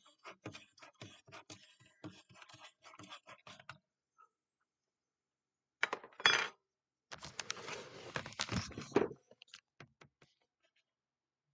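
Spoon stirring sugared soda in a foam cup, ticking about four to five times a second for nearly four seconds. After a pause comes a sharp knock, the loudest sound, and about two seconds of bumping and rubbing as the camera is picked up and moved.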